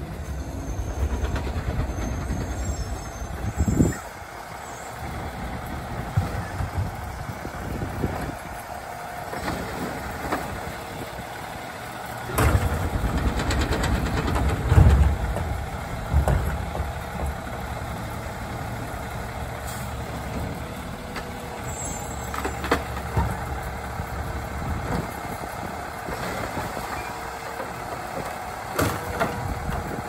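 Autocar ACX Labrie Automizer automated side-loader garbage truck pulling up and stopping, with a short burst like an air-brake release about four seconds in. Its engine then revs up for a few seconds as the automated arm grabs and lifts a trash cart, and metal clanks ring out as the cart is tipped into the hopper and handled.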